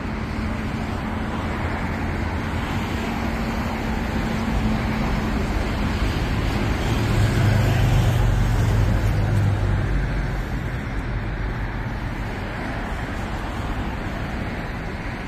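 Road traffic running steadily, with a heavier vehicle's low engine hum swelling loudest between about seven and ten seconds in.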